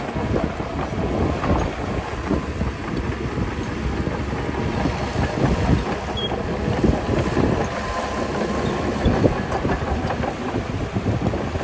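Heavy diesel earthmoving machinery working: a steady, dense engine rumble with small swells in level.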